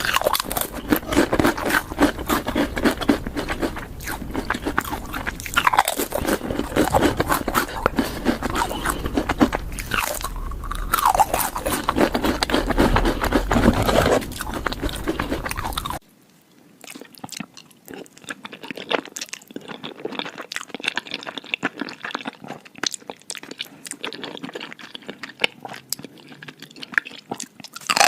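Close-up crunching and chewing of crisp food: a dense, rapid run of bites and crunches. About sixteen seconds in, the sound cuts abruptly to quieter, thinner, more scattered crunches.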